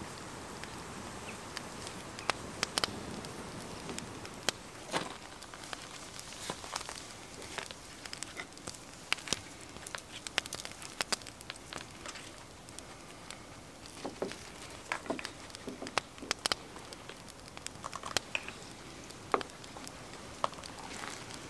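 Wood campfire crackling, with irregular sharp pops and clicks over a faint steady hiss.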